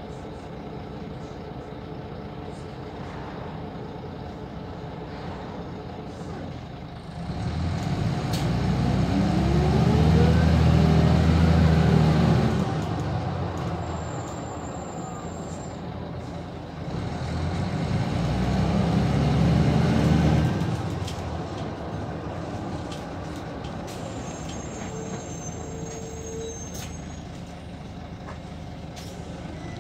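Van Hool AG300 bus heard from inside, its engine and drivetrain surging loudly twice under hard kickdown acceleration, about seven seconds in and again about seventeen seconds in, each surge climbing in pitch and then dropping away; between and after them the bus runs on steadily.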